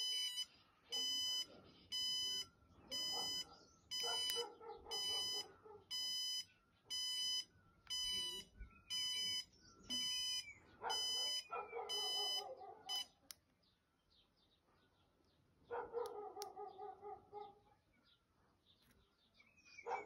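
Remote-controlled bicycle tail light's turn-signal beeper: a high electronic beep about once a second while the indicator arrow flashes, stopping about two-thirds of the way through. A dog barks several times in the background.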